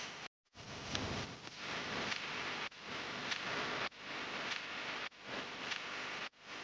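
Eggs being beaten in a bowl, a busy clatter of utensil clicks against the bowl. It comes in short chunks that cut off abruptly every second or so.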